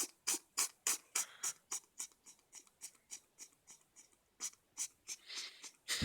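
A cat with a cold sneezing in a rapid, even run of short, sharp sneezes, about three a second, that grow fainter, followed near the end by a couple of louder, longer sneezes.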